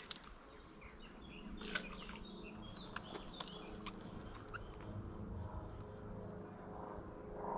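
Faint birdsong: several small birds chirping in short, high calls, with a few sharp clicks scattered through.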